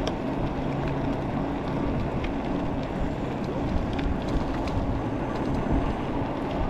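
Steady wind and road noise from riding an electric bike, with a faint low hum in the first couple of seconds.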